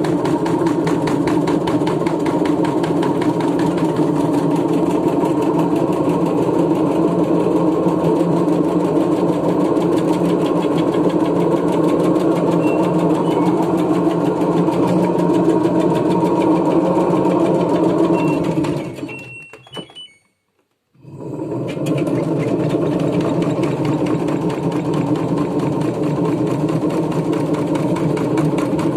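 LG washing machine spinning hard and shaking, with a fast, steady rattle. The sound fades out about two-thirds of the way through and cuts back in abruptly a couple of seconds later.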